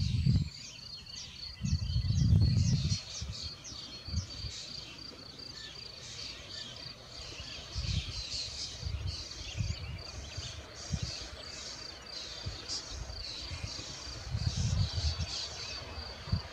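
Young starlings begging with short, harsh calls, busiest around the wing-fluttering about halfway through, over an evenly repeated high note that runs throughout. Louder low rumbling bursts come about two seconds in and again near the end.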